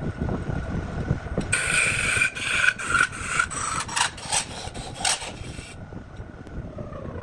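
Wood lathe running with a steady hum and thin whine, while a hand-held tool is pressed against the spinning wood from about a second and a half in until near six seconds. The contact makes a loud scraping rasp that comes in quick repeated strokes.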